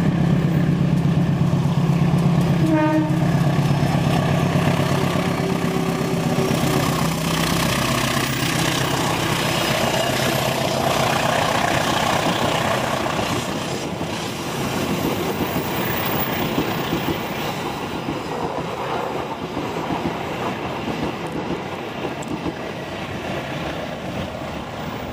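GE U20C (CC 203 class) diesel-electric locomotive passing under heavy power, its engine a loud low steady drone that gives way after about seven seconds to the passenger coaches rolling by, wheels clattering on the rails and slowly fading. A brief horn note sounds about three seconds in.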